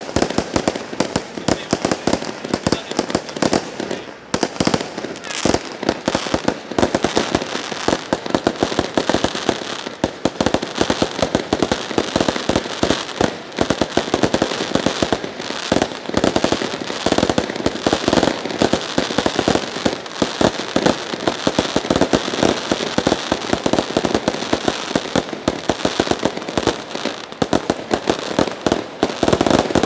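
Aerial fireworks going off in a continuous barrage: a rapid, unbroken run of sharp bangs and crackles, many per second, as shells burst one after another.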